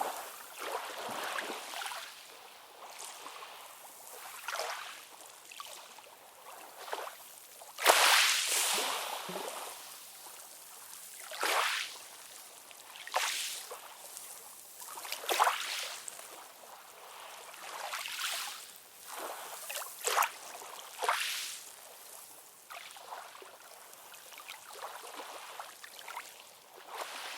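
Small ocean waves lapping and splashing in quick, irregular surges every second or two over a steady wash, one larger splash a little before the middle.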